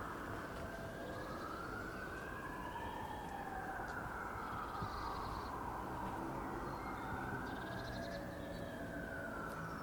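Emergency-vehicle siren wailing, its pitch slowly rising and falling in long sweeps, over a steady low background rumble, with a few faint bird chirps.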